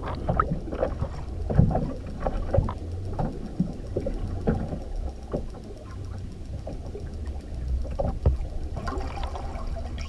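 Muffled water noise with frequent small knocks and taps, picked up by a camera held under the water. Almost nothing is heard above a low, dull range.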